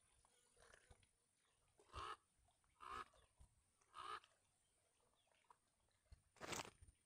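Near silence broken by a bird giving three short calls, about a second apart, then a brief louder burst of noise near the end.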